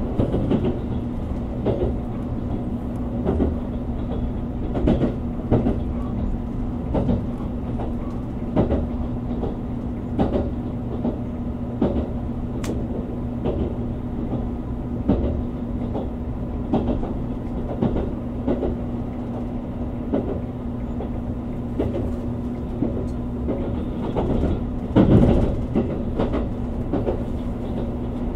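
787 series electric train running at speed, heard from inside the carriage: a steady hum with irregular clicks of the wheels over rail joints, and a brief louder rumble near the end.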